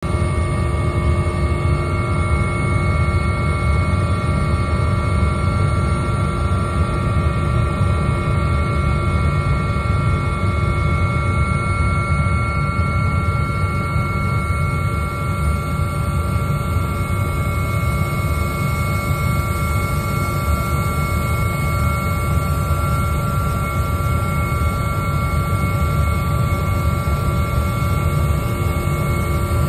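An AgustaWestland AW139 twin-turbine helicopter in flight, heard from inside the cabin: a steady, loud low rumble of rotors and engines, with several steady high whining tones held over it.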